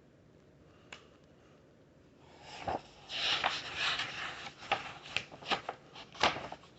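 Paper rustling and crackling with several sharp clicks as a picture book's page is handled and turned, starting about two seconds in after a faint click.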